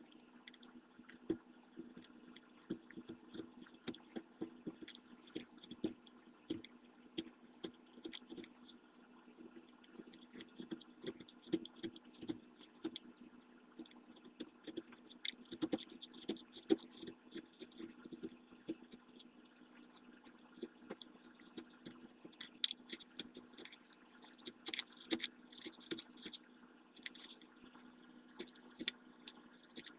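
Hand gouge paring curled shavings from the barrel channel of a walnut rifle handguard blank: a run of small, irregular scrapes and clicks as the edge cuts the wood, over a steady low hum.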